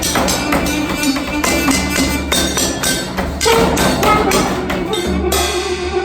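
Improvised percussion: quick, irregular strikes and rattles, several a second, over a held low tone, with a brighter shimmering wash coming in about five seconds in.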